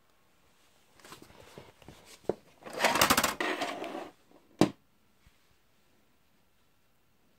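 Mechanical clicking and clatter from the open Philips VR550 VHS deck's tape transport. Scattered small clicks lead into a dense clatter about three seconds in, and a single sharp click follows near the five-second mark.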